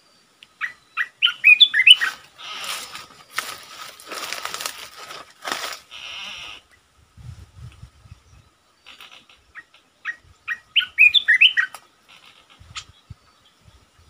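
Bulbul song: two short phrases of quick, bubbly whistled notes, one near the start and one about ten seconds later. In between come several seconds of rustling and flapping from a caught bird as it is handled and put into a bamboo cage.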